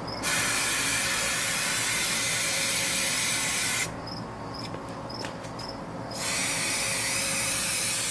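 Spray can of Rust-Oleum LeakSeal rubber sealant hissing in long bursts as it is sprayed along the welds of an aluminium canoe: one burst of about three and a half seconds, a pause of about two seconds, then another burst.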